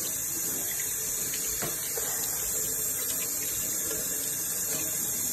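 Kitchen faucet running in a steady stream into a stainless steel sink, with hands being rinsed under the flow.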